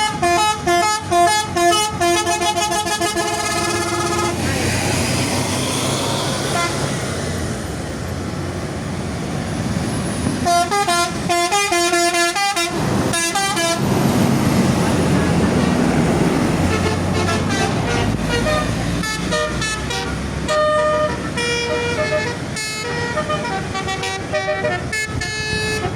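Bus Basuri telolet horns, multi-tone musical horns, playing quick melodic tunes in several runs: one at the start, another about ten seconds in, and more through the last part. A bus engine rumbles past between the tunes.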